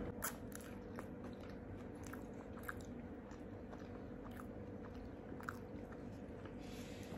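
A person chewing a mouthful of fish fillet burger with lips closed, close to the microphone, with faint scattered wet mouth clicks.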